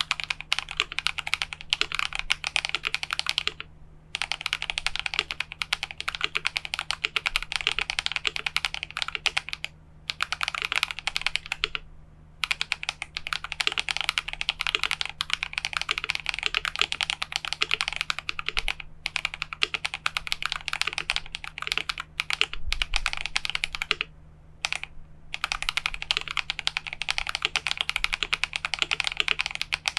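Fast typing on a mechanical keyboard with lubed, tactile Invyr Holy Panda switches on a polycarbonate plate, the case dampened with foam: a dense run of clacky keystrokes that pauses briefly a few times.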